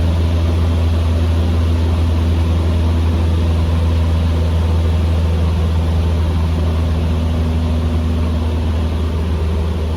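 Cessna 150M's Continental O-200 four-cylinder engine and propeller droning steadily in flight, a constant low hum.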